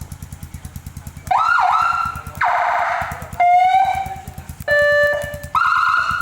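Whelen siren sounding through an FS TS300N speaker on a Kawasaki KLX, stepping through a series of short tones about a second each: quick rising chirps, a buzzing horn tone, a tone that rises and then holds, and two steady horn tones. The motorcycle's engine idles beneath with an even pulse, plainest in the first second before the siren starts.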